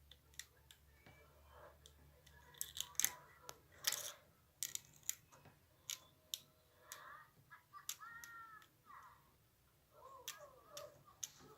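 Wooden door swung on hinges freshly oiled with sunflower oil, giving scattered faint clicks and knocks and no steady squeak: the oil has cured the creak.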